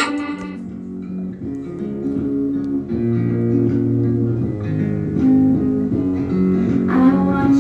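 Background music led by plucked guitar over a bass line.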